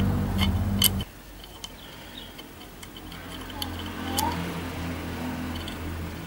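Small metallic clicks and ticks as the thread-tension discs, spring and thumb nut of a sewing machine are handled and fitted back onto the tension stud. A loud steady low hum runs under the first second and cuts off abruptly, leaving a fainter hum.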